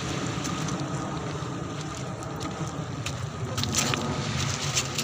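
Steady wind and water noise, with a few brief sharp sounds in the last second or so.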